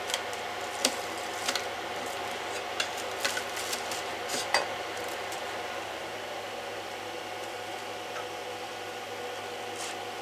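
A metal scraper prying a 3D-printed plastic part off the printer's bed, giving scattered sharp clicks and cracks over the first four or five seconds. A steady hum from the 3D printer's fans runs throughout.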